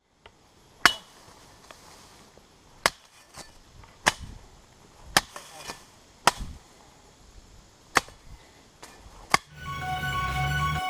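Sharp chopping strikes of a blade, seven of them at uneven intervals of about a second. Music starts near the end.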